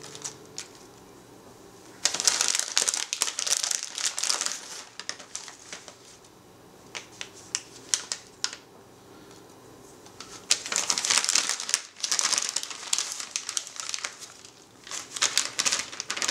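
Plastic bag of shredded cheddar cheese crinkling in stretches of a few seconds, with light clicks between, as the cheese is shaken out and spread by hand. The loudest crinkling starts about two seconds in and again about ten seconds in.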